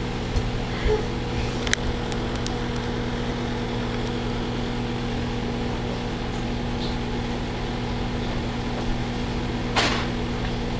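Steady electrical hum of a running microwave oven, with a couple of faint clicks about two seconds in and a short burst of noise near the end.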